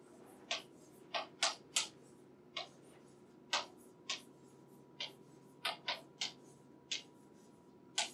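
Chalk tapping and clicking against a blackboard as symbols are written: about a dozen short, sharp taps at uneven intervals, some in quick pairs.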